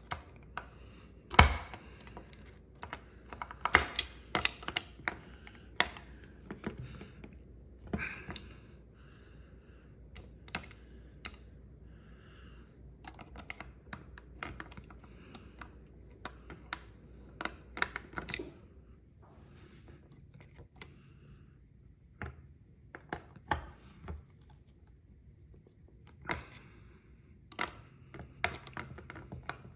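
Irregular clicks, taps and knocks of a hand screwdriver driving the cover screws into a plastic-housed GM ABS module (EBCM) on a stone countertop, as its cover is screwed back on. A single sharp knock about one and a half seconds in is the loudest sound.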